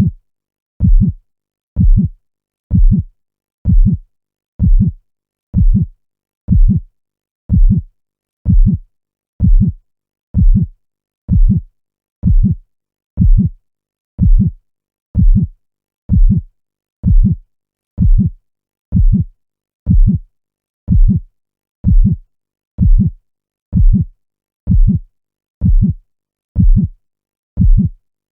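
Heartbeat sound: a slow, steady lub-dub, each beat a low double thump, repeating a little faster than once a second with silence between beats.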